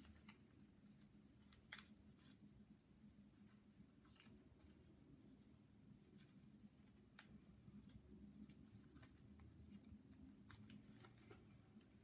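Faint crinkles and clicks of a small sheet of origami paper being folded and creased by hand, with a sharper crackle a little under two seconds in.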